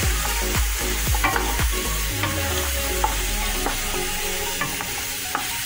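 Chunks of pork sizzling in an aluminium pan after a splash of water has been poured in, stirred with a spatula that scrapes and knocks irregularly against the pan.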